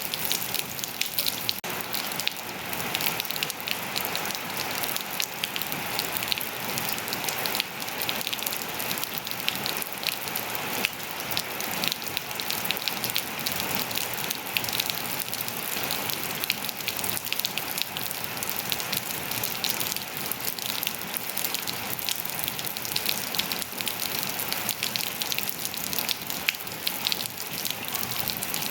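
Steady rain falling on surfaces: an even hiss full of fine, close drop ticks.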